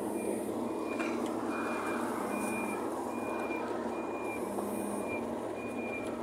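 A high electronic warning beep repeating steadily, about three beeps every two seconds, over steady vehicle noise.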